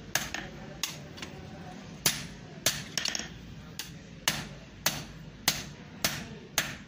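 Hand hammer striking red-hot iron on an anvil: a steady run of sharp metal blows, roughly one every half to two-thirds of a second, with a few lighter taps between them.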